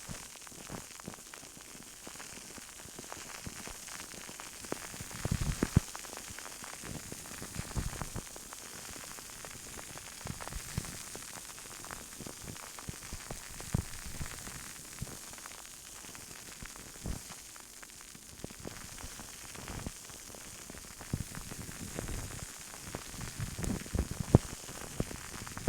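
Close-miked ASMR hand sounds: fingers tapping and rubbing right at the microphone, giving a crackly hiss with scattered sharp taps and a few soft thumps, clustered about five seconds in and again near the end.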